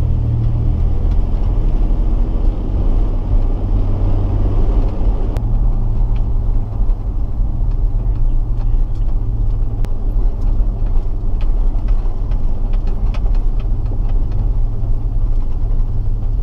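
Steady low rumble of a pickup truck's engine and road noise, heard from inside the cab while driving.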